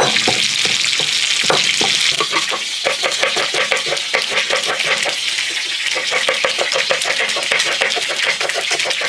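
Kitchen knife chopping quickly on a wooden cutting board, several strokes a second, after a few knocks of a stone pestle grinding chilies in a stone mortar at the start. Oil frying fish sizzles steadily underneath.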